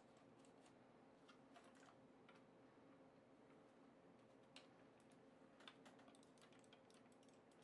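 Faint, scattered clicks and taps of the hard plastic gun-style gaming mouse and its detachable grip being handled and fitted together, over a low steady hum.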